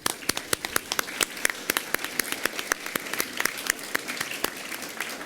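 An audience of school students clapping: a round of applause, dense and uneven.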